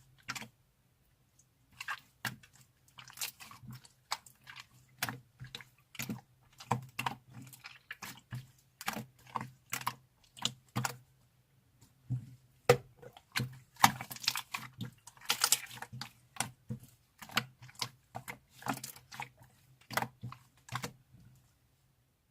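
Clear slime being squeezed, pressed and poked by hand, giving irregular clusters of sticky clicks and squishes with short pauses between them.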